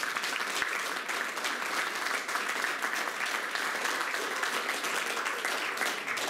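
Audience applauding: steady, dense clapping from many hands, beginning to fade near the end.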